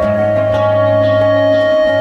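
Instrumental background music with long held notes over a sustained low bass note.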